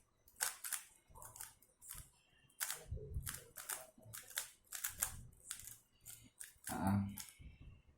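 MoYu RS3M 2020 magnetic speedcube being turned layer by layer while it is scrambled: a run of sharp, irregular clicks, two or three a second, with one heavier knock about seven seconds in.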